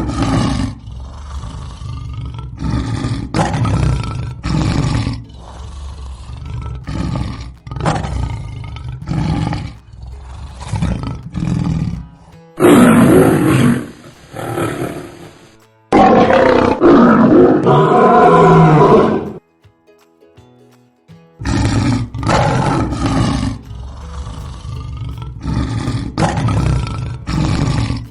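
Lions roaring: a run of deep roars repeated about a second apart, then a louder, harsher stretch in the middle. After a short break about twenty seconds in, another series of repeated roars follows.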